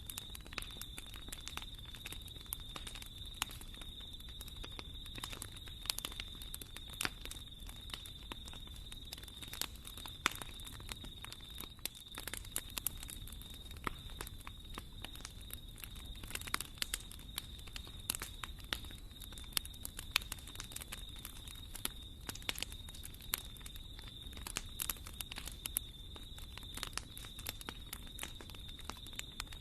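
Wood fire burning in a fireplace, crackling and popping at irregular moments over a low steady rumble.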